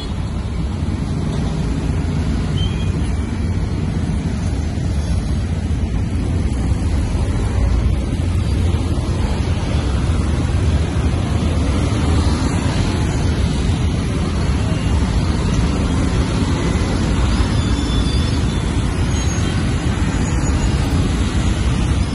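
Steady road traffic noise from a jammed street of motorbikes, cars and trucks, a continuous low rumble of engines and tyres.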